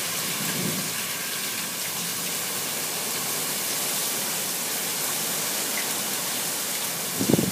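Torrential hurricane rain pouring down in a steady, even hiss. A brief, louder low sound comes near the end.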